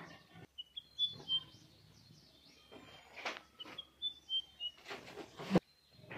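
Fabric and box rustling as a hoodie is lifted out of a cardboard box, with birds chirping in the background in short runs of high chirps. A sharp knock about five and a half seconds in is the loudest sound.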